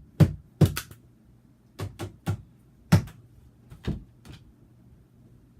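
A series of sharp knocks. They come quickly and evenly at first, then scattered and fainter, and stop after about four seconds.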